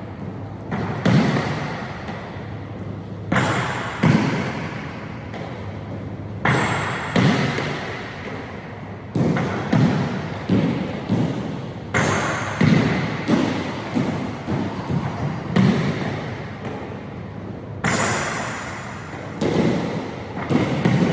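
A basketball bouncing on a hardwood gym floor during a shooting session: a string of sharp, irregular thuds about one to two seconds apart, each with an echoing tail.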